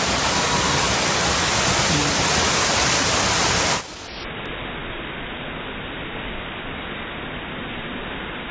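Water rushing and splashing as it swirls around the bowl of a toilet-bowl water slide, a steady rush. About four seconds in it abruptly drops in level and turns duller.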